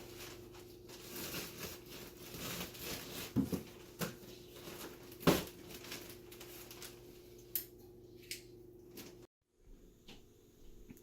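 Irregular crinkling, tearing and scraping of hands-on work, with scattered sharp knocks, the loudest about five seconds in, over a steady low hum. The sound cuts out briefly about nine seconds in.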